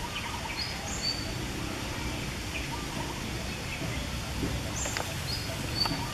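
Outdoor ambience: a steady low background noise with short, high bird chirps now and then, in a few small clusters.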